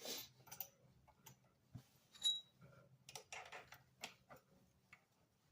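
Small metal parts clicking and clinking as an axle is worked through a scooter wheel's center spacer, with one short metallic ping about two seconds in.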